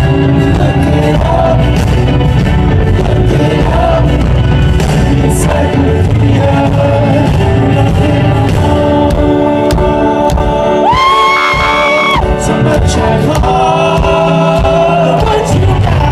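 Live rock band playing on stage, heard from among the audience, with a voice singing over the instruments. About eleven seconds in, one loud high cry rises and holds for about a second.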